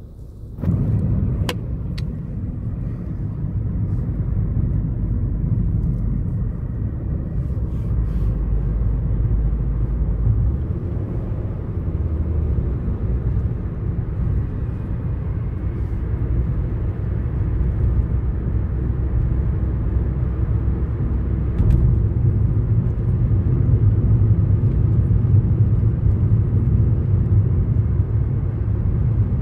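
Low, steady rumble of a car heard from inside its cabin, engine and road noise. It jumps up sharply about half a second in, with two sharp clicks just after.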